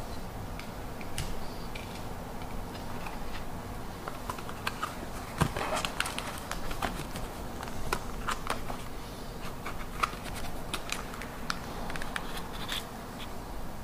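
Hands handling a small plastic-and-paper accessory box: irregular clicks, scrapes and rustles of the clear plastic lid, tray and paper booklet, with a sharper click about five seconds in and another about ten seconds in, over a faint steady hum.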